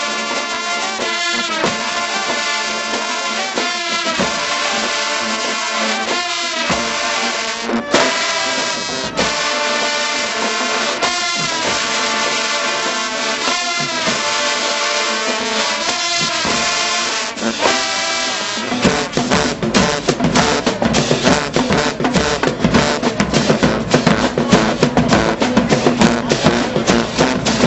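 High school marching band playing: the brass section sounds loud held chords in short phrases, and about nineteen seconds in the drumline comes in with a fast, driving beat under the horns.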